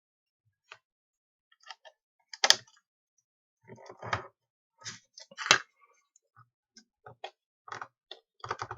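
Irregular clicks and knocks of a screwdriver working a stiff screw out of a burglar alarm sensor, with two louder knocks about two and a half and five and a half seconds in.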